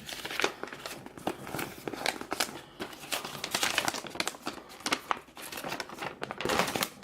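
Packaging from a trading card starter deck crinkling and crackling in irregular bursts as it is handled and pulled open, with some tearing.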